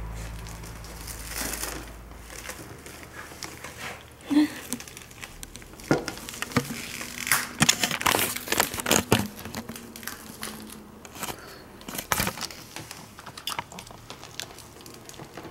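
Handling noise close to the microphone: irregular crinkling and rustling with many scattered sharp taps and clicks.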